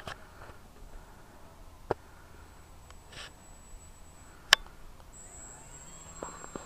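Faint, high-pitched steady whine of an E-flite Nieuport 17 park flyer's electric motor and propeller in flight, growing stronger about five seconds in as the plane passes closer. Two sharp clicks stand out, at about two seconds and, louder, about four and a half seconds in.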